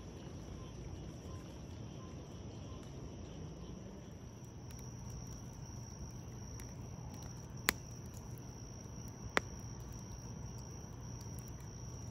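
Night insects trilling in a steady high chorus, over a wood campfire crackling in a steel fire ring, with two sharp pops from the fire in the second half, a couple of seconds apart.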